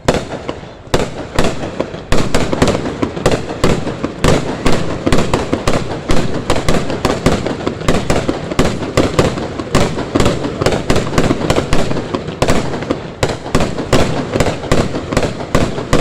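Fireworks going off in a dense barrage of sharp bangs and crackles, several a second, getting louder and busier about two seconds in.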